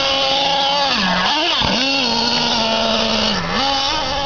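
Small two-stroke nitro engine of a Traxxas Revo RC monster truck running at high revs, the pitch dropping briefly as the throttle is let off about a second and a half in and again near the end, then climbing back up.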